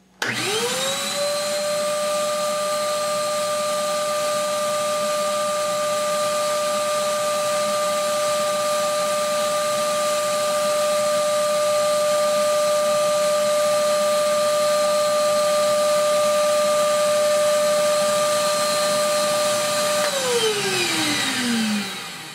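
Wet/dry shop vacuum motor switched on, quickly spinning up to a steady high whine with a rush of air from its bare exhaust port. About twenty seconds in it is switched off, and the whine falls away as the motor winds down.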